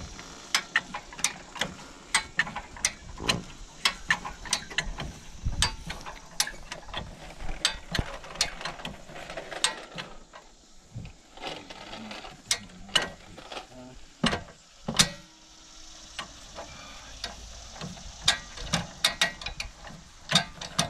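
High-lift jack being pumped, its pawls ratcheting up the steel bar in a run of sharp clicks, with a lull around the middle.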